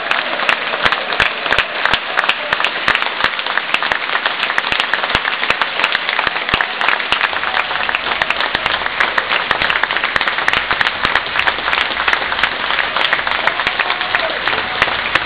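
Football stadium crowd applauding: dense, continuous clapping from many hands, with a few voices calling out.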